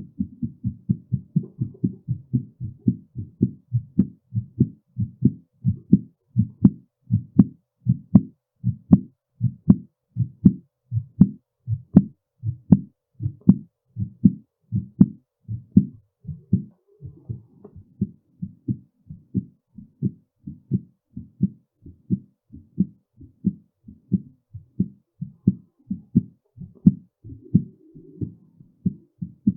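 Human heartbeat picked up close to the chest, a steady train of regular, evenly spaced low thumps.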